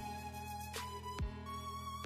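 Background music: held melodic tones over a beat of deep drum hits.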